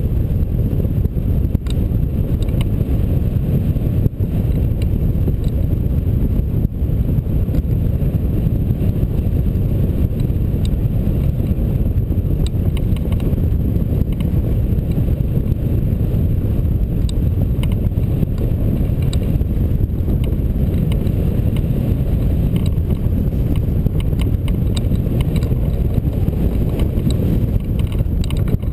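Airflow buffeting the microphone of a camera mounted on a hang glider in flight: a steady, deep wind rush, with a few faint clicks.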